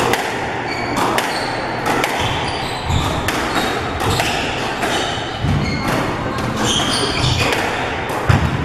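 Squash rally: the ball cracking off the rackets and the court walls again and again, with short squeaks from the players' shoes on the wooden floor.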